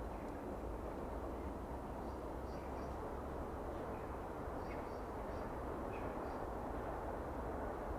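Small birds chirping faintly in short high notes, often in quick pairs, several times from about two seconds in, over a steady low background rumble.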